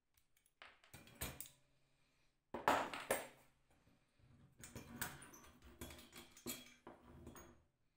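Small steel parts of a welded toy tricycle and hand tools being handled on a workbench: irregular clinks and knocks of metal on metal, loudest around three seconds in, followed by a run of lighter clinks.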